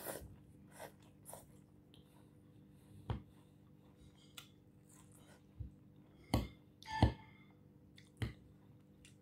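Someone chewing crisp salad greens, with scattered sharp clicks and clinks of a metal fork against a ceramic plate; the two loudest come in the last third, one ringing briefly. A faint steady hum runs underneath.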